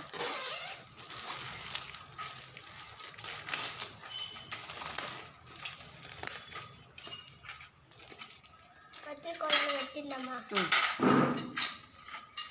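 Clear plastic protective film being peeled and crinkled off a stainless-steel shoe rack, a continuous rustling crackle with small ticks and light metal taps. A voice is heard briefly near the end.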